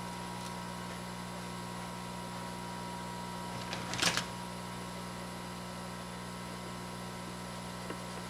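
Steady electrical hum with a thin steady whine, and one brief scrape about four seconds in.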